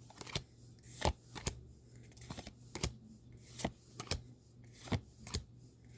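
Pokémon trading cards sliding against one another as they are flipped through one at a time, with a short swish every half second to a second.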